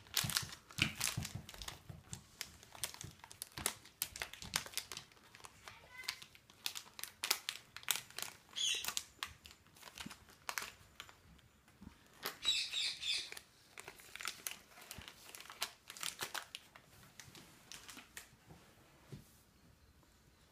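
Cadbury Dairy Milk chocolate bar wrapper being opened by hand: irregular crinkling and tearing of the packaging, thinning out near the end.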